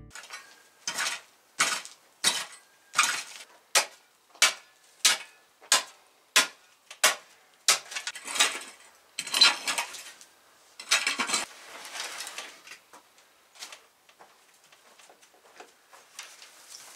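Steel shovel blade striking and scraping a hard, gravelly dirt floor: a quick run of sharp strokes about one every half second, then longer scraping strokes, dying away to a few faint knocks near the end.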